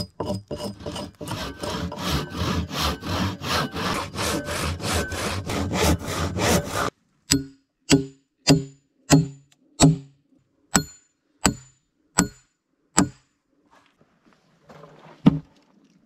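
Hatchet scraping bark off a log in quick rasping strokes, about three a second. These cut off suddenly about seven seconds in. Then come single sharp hatchet blows into the wood about one and a half a second apart, with a last blow near the end.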